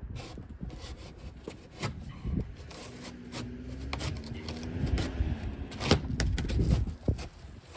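Cardboard box and packing being handled: irregular rustling, scraping and knocks as parts are pulled out, loudest around the middle and after. A low rumble of wind on the microphone runs underneath, and a drawn-out low tone sounds for a couple of seconds partway through.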